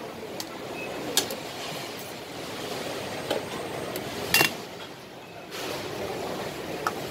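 Stainless-steel tongs and a soup ladle clinking against porcelain bowls and a steel soup pot: a handful of sharp, separate clinks, the loudest a ringing double clink a little past halfway, over a steady background hum.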